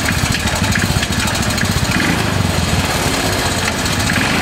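Small gasoline engine of a 1969 Roof Palomino lawn-mower mini jeep running steadily, its rapid firing pulses even and loud.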